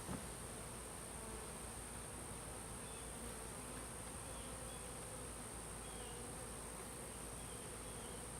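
Honeybees buzzing around an opened hive, a faint, even hum, with one soft knock right at the start.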